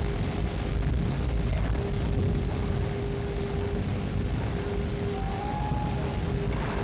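Steady low rumble of heavy machinery, with a thin whine that breaks off and returns and a short higher squeal a little over five seconds in.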